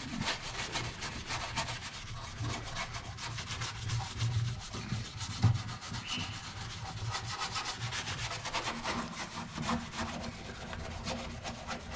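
A small brush scrubbing the bare inner metal panel of a Volkswagen Gol G3 door, a steady run of quick back-and-forth strokes.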